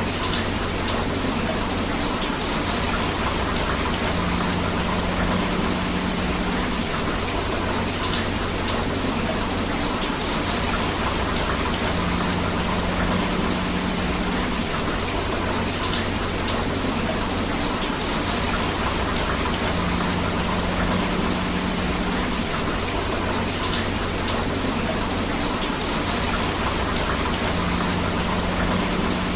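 Steady heavy rain mixed with rushing river water, an even hiss with no breaks. A faint low hum rises and fades about every eight seconds.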